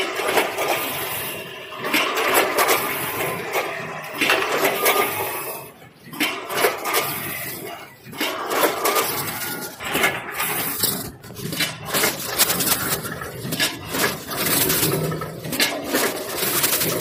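Multihead weigher running with long pet food sticks: the sticks slide and drop through its stainless steel hoppers and buckets while the bucket gates knock, making an irregular metallic clatter that swells and eases with each cycle.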